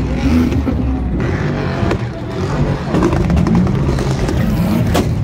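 Loud car engine held against a two-step launch rev limiter, running in a choppy, stuttering way with exhaust pops. A sharp crack comes near the end.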